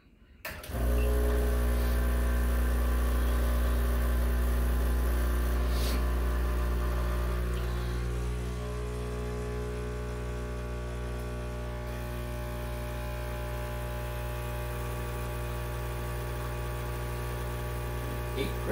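ECM Mechanika V Slim espresso machine's vibratory pump running during a shot pull, starting about a second in as a steady electric hum, then settling a little quieter about eight seconds in.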